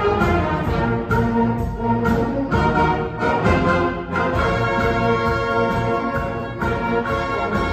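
School concert band playing: brass and woodwinds sounding sustained chords together over a low tuba part, with sharp percussion accents falling at regular intervals.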